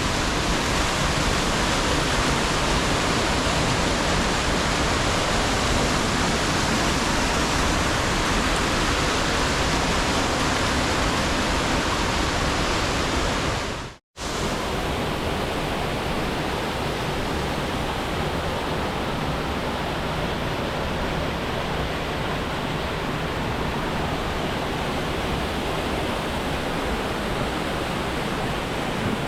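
Mountain stream rushing through a narrow gorge over cascades and small waterfalls, a steady loud wash of water noise. About halfway through it cuts out for an instant, then resumes slightly quieter and duller.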